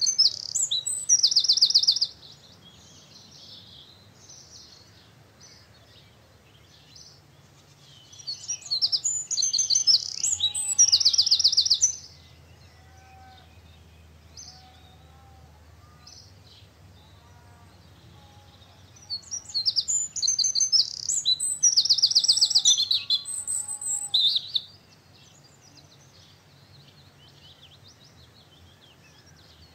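A songbird singing loud, high phrases of rapid trills, one at the start, one about eight seconds in and one about nineteen seconds in, each lasting a few seconds. Fainter, lower bird calls come between the phrases.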